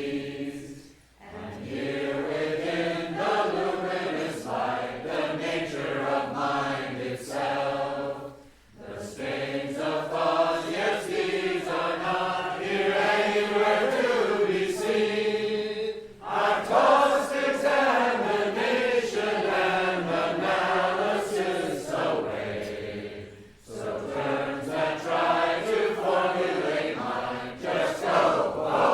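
Voices singing together in a slow, chant-like Buddhist song, in long phrases broken by short pauses about every seven to eight seconds.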